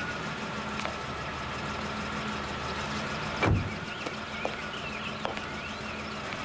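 A Checker taxi cab's engine idling steadily while its rear door is shut with one solid slam about halfway through. A few light clicks come before and after the slam.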